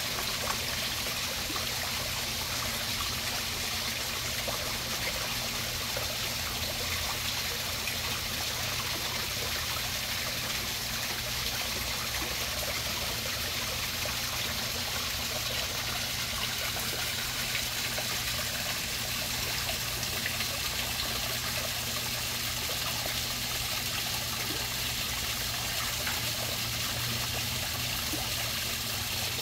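Koi pond waterfall splashing and trickling steadily, an even, unbroken rush of water, with a steady low hum beneath it.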